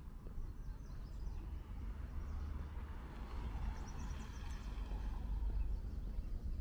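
Outdoor ambience with a steady low rumble, and a car driving slowly past, its tyre noise swelling a few seconds in and fading near the end.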